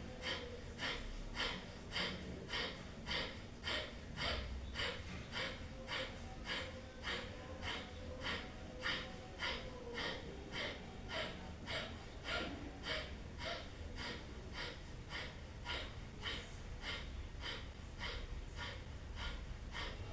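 Kapalbhati breathing: a woman's short, forceful exhalations through the nose in a steady rhythm, about two a second.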